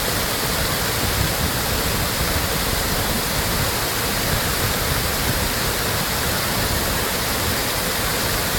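Water pouring down an artificial cascade: a steady, even rush of falling water.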